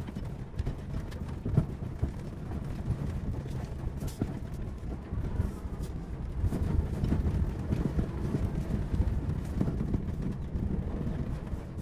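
Vehicle driving over a rocky gravel track, heard from inside the cab: a low rumble of tyres and body on the rough ground, with irregular knocks and clatters as stones strike underneath.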